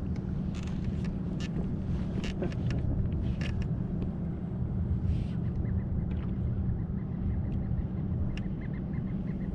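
Steady low rumble with a hum underneath, and a quick run of light ticks near the end.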